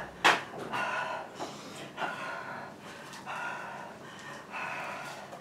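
A person panting hard, with quick audible breaths in and out every half second or so: out of breath from a hard, fast-paced workout.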